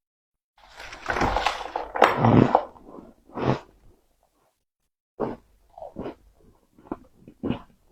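Close-miked eating of powdery freezer frost: a long, dense crunch about a second in, then after a pause a run of short chewing crunches, about two a second.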